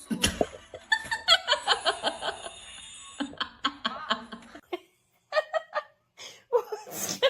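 A person laughing in quick repeated bursts, with further short bursts of laughter after a brief pause.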